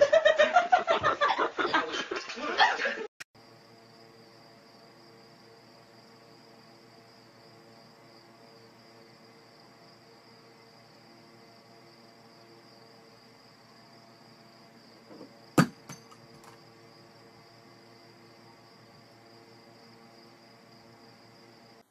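A child's lively voice for about the first three seconds, then a faint, steady hum with a thin high whine, broken once by a sharp knock about fifteen seconds in.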